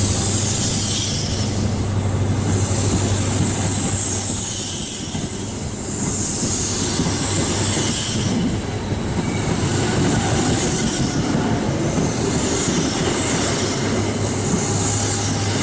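High Speed Train (InterCity 125) coming through the platform, its coaches' wheels rolling and squealing past over a steady low diesel hum from a Class 43 power car. A high hissing squeal swells and fades about every three seconds as each coach goes by.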